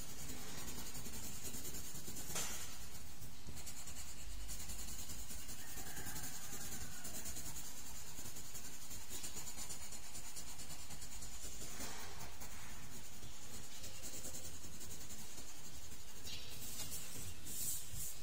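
Pink coloured pencil shading on drawing paper: a steady, soft scratching, with a brief rustle near the end as the sheet is turned.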